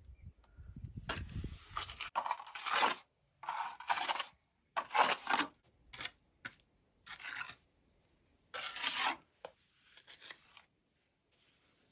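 Steel trowel spreading and scraping wet cement render onto a rough stone wall. About ten separate rasping strokes, each shorter than a second, with short pauses between them.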